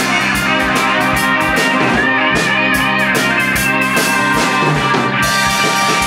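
Live instrumental rock played by a band: electric guitar, bass guitar and drum kit with cymbals. A high lead guitar line wavers in pitch about two seconds in.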